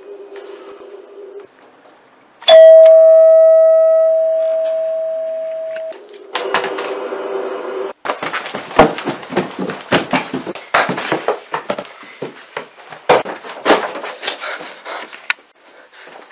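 A doorbell chime rings: one loud tone about two and a half seconds in, fading away over about three seconds, with a low electric buzz before it and again after it. From about 8 seconds in come many irregular knocks and clatter of objects being grabbed and handled.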